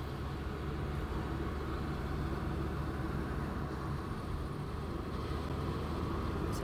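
Steady hum and rumble of a motor vehicle driving along a road, engine and tyre noise with no sharp events.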